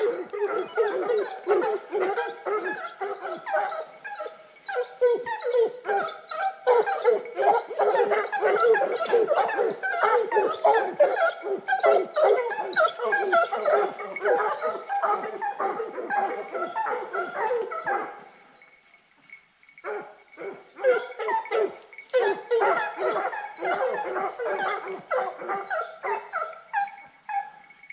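A pack of Fauve de Bretagne scent hounds baying together in full cry, many voices overlapping, as they follow the line of a roe deer. The cry dies down briefly about two-thirds of the way through, then picks up again.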